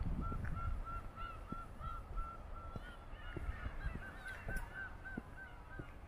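Gulls calling: a long run of short, evenly spaced calls, about four a second, with more calls at a slightly higher pitch joining about halfway through, over a low steady rumble.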